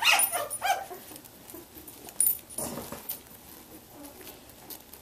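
Newborn Samoyed puppies whimpering and squealing as they push in under their mother to nurse. There are several short high squeals in the first second, then fainter whimpers and one louder cry about two and a half seconds in.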